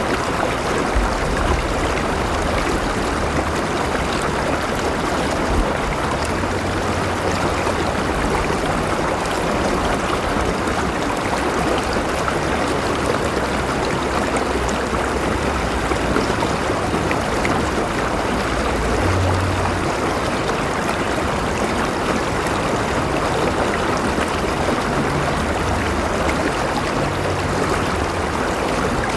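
River water flowing and rushing over rocks: a steady, unbroken gurgling and splashing.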